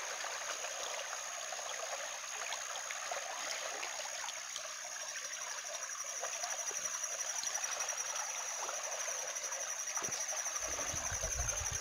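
Small stream running over shallow rapids, a steady even rush of water, with a thin steady high tone above it.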